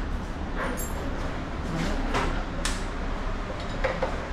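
Hand tools clinking and clattering against metal at intervals as a motorcycle's front fork and wheel are taken apart to replace a leaking fork oil seal, over a steady low hum.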